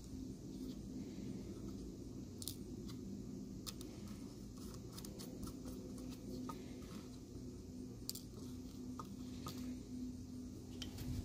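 A few faint, sharp clicks and some rubbing as a plastic Dogwatch fence receiver and its prong plate are pressed onto a dog collar by hand, over a steady low hum.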